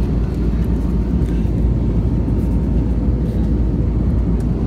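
Passenger airplane cabin noise: a steady, loud low rumble of engines and airflow, with a faint steady hum above it.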